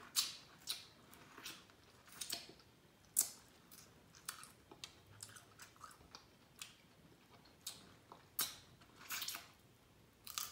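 Eating boiled crab legs: sucking the meat out of the shell and chewing it, with irregular short, sharp mouth clicks and smacks.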